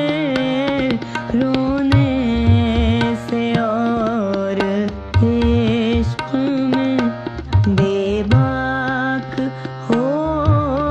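Background music in Indian classical style: an ornamented, wavering melody over a low drone, with tabla strokes.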